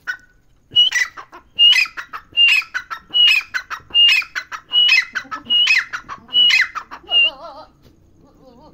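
Grey francolin (teetar) calling loudly: a series of about nine harsh repeated calls, roughly one every 0.8 seconds, each with a sharp high note. The calls break into wavering lower notes near the end.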